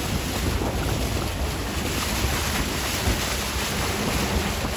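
Steady wind rumble on the microphone over the wash of choppy lake water.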